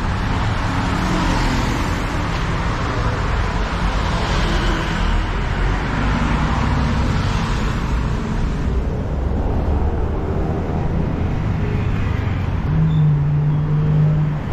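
Busy road traffic: a steady rush of passing vehicles that swells as each goes by. A steady low engine hum sets in near the end.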